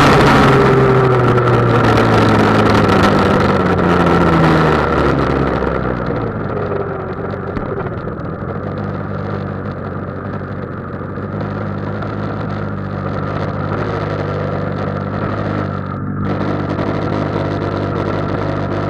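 GoPed GSR40 scooter's small two-stroke engine winding down in pitch as the scooter slows off the throttle, then settling into a steady idle about five seconds in.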